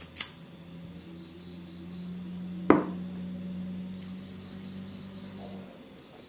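A sharp knock about two and a half seconds in, with a short click just before it at the start, over a steady low hum. Crickets chirp faintly in the background.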